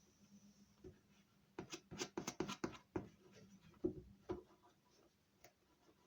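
Hands pressing and rubbing gum paper tape onto the cardboard of a toy box: a quick run of scratchy rubs and clicks, then a few more about a second later.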